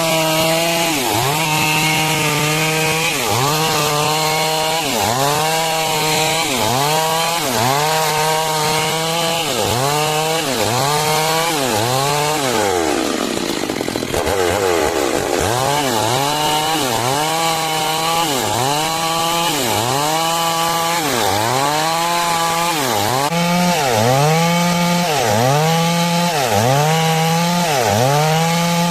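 Stihl MS 382 two-stroke chainsaw cutting through wood while planks are sawn, its engine pitch dipping and recovering about once a second as the chain loads in the cut. About 13 seconds in the engine slows in one long fall, then picks up again and goes on dipping.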